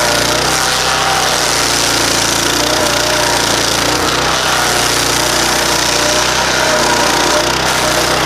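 15 hp stump grinder with a Loncin engine, running steadily at working speed while its nine-tooth cutting wheel grinds into a wooden stump: an engine drone under a continuous chattering, grinding noise.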